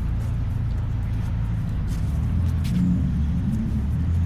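A vehicle engine running at idle nearby: a steady low rumble that grows slightly louder about two seconds in.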